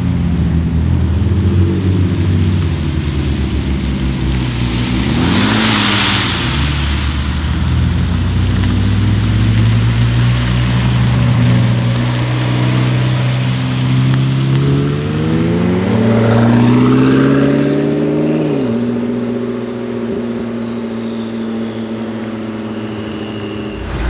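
McLaren 600LT Spider's twin-turbo V8 pulling away at low speed, with a brief loud rush of noise about six seconds in. The revs climb in a rising pull around fifteen seconds in, then drop away as the throttle closes, settling to a steadier, quieter drone.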